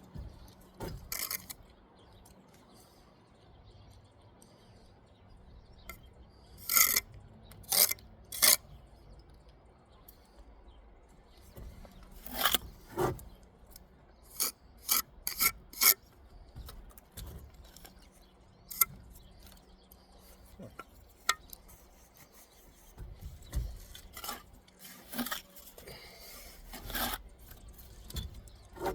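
Brick trowel scraping and working mortar against bricks: a series of short scrapes at irregular intervals.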